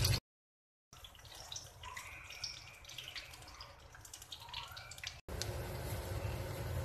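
Banana fritters deep-frying in hot oil in a small pot: a sizzle with scattered crackles and pops. The sound cuts to silence for a moment just after the start, and about five seconds in it jumps abruptly louder into a steadier sizzle.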